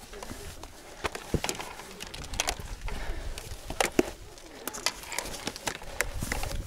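Hiking boots stepping and scraping on rock during a scramble: a string of irregular sharp knocks and clicks.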